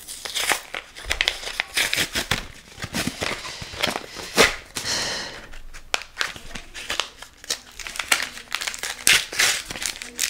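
Yu-Gi-Oh booster pack's foil wrapper crinkling and tearing as it is opened by hand: an irregular run of sharp crackles, with one longer rip just after the middle.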